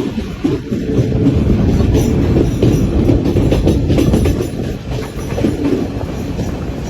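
Passenger train running along the track: a steady, loud rumble with clattering of the wheels over the rails.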